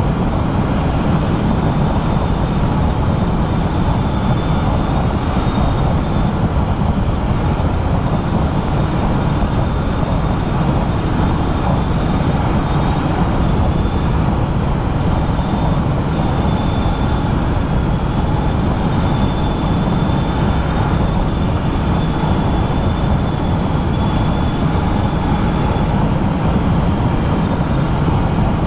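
Helicopter in flight: steady, loud engine and rotor noise with a faint high whine above it.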